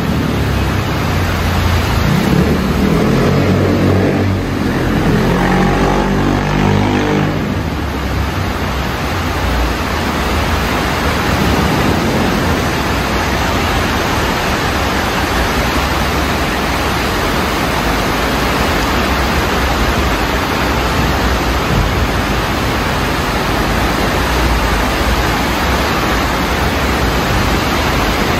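Rushing floodwater: a swollen stream running fast with a loud, steady rushing noise. During the first eight seconds or so, a passing vehicle's engine is heard under it, swelling and fading away.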